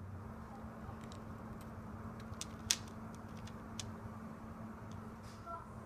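Scattered light clicks and taps, one sharper click nearly three seconds in, over a steady low hum.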